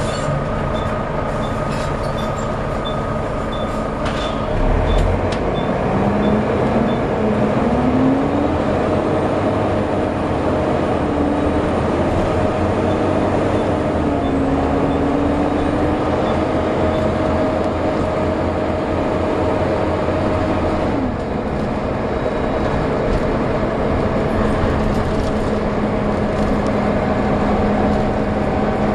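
Volvo B7TL double-decker bus under way with its engine and driveline running and a hoover-like whine. The whine rises in pitch about five to eight seconds in as the bus pulls away, holds steady, dips about 21 seconds in, then picks up again. A light regular ticking runs for the first four seconds and ends with a click.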